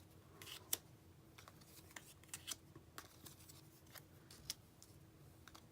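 Faint, scattered rustles and light taps of paper die cuts being handled and laid down, with a louder tap just under a second in and another about four and a half seconds in.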